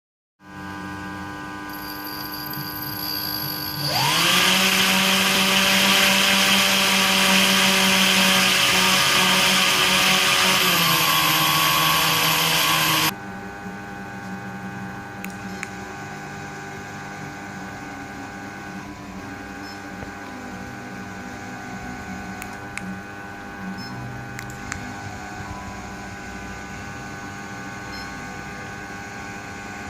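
The small DC motor spinning the cutting blade of a home-built remote-controlled robot lawn mower: a loud whine that spins up suddenly about four seconds in, holds steady, sags slightly and cuts off abruptly a little under halfway through. After it comes a quieter steady hum of the robot's wheel gear motors as it drives and turns on the spot, one wheel forward and the other in reverse.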